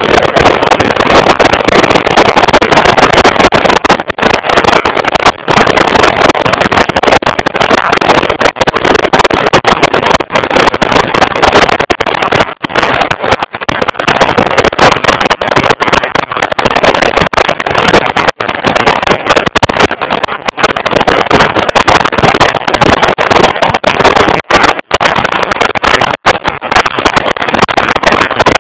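Loud rushing wind and motorcycle engine and road noise heard from a bike-mounted camera while riding at speed, the sound cutting out briefly many times.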